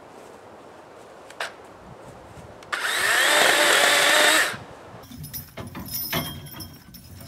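DeWalt 20-volt battery-powered chainsaw's electric motor whining up to speed and running for about two seconds, then stopping. Scattered crackles and knocks follow.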